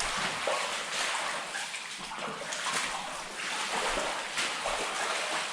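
Feet wading through shallow water, splashing and sloshing with uneven steps.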